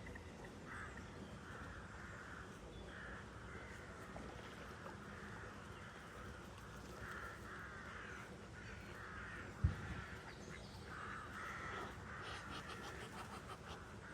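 Birds calling over and over in short harsh calls, with a brief low thump about ten seconds in.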